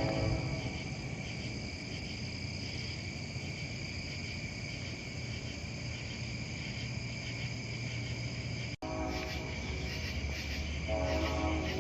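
Insects chirring steadily in high tones over a low rumble. A train horn chord fades out at the start and sounds again about a second before the end, and there is a brief dropout in the audio shortly before that.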